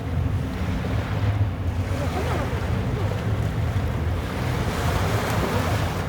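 Sea waves washing onto a beach, with wind buffeting the microphone as a steady low rumble; a wave washes in louder near the end.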